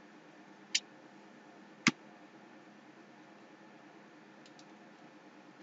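Two sharp clicks about a second apart, the second louder, then a couple of faint ticks, over a faint steady hum of room noise.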